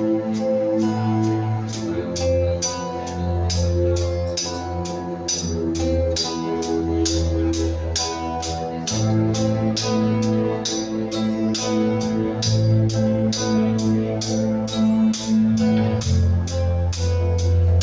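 Instrumental band music with a steady beat: sustained bass and chords under regular percussion strokes, about three a second.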